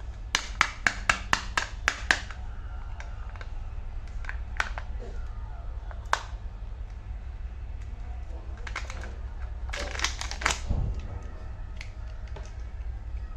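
Hard plastic clicking and tapping from Kinder Joy eggs and their toy capsules being handled. There is a quick run of about eight sharp clicks in the first two seconds, then scattered clicks and a short cluster about ten seconds in, over a steady low hum.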